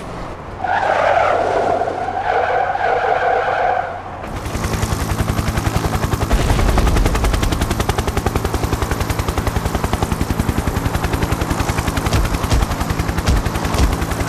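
A tyre screech lasting about three seconds. Then, from about four seconds in, a long fast run of sharp repeated bangs, about ten a second, over a steady low hum.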